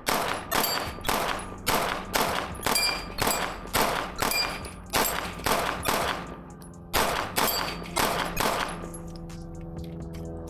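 Fusion Firearms XF-Pro 9mm pistol with a ported barrel fired in rapid strings, about two shots a second. There is a brief pause a little past halfway, then four more shots before the firing stops.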